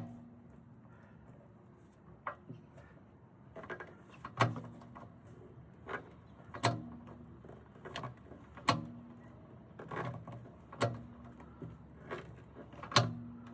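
Hand pop rivet gun being squeezed stroke by stroke to set a rivet in a truck's tail light bracket, giving a sharp metallic click about every two seconds, five strong ones in all, with smaller clicks as the handles reopen.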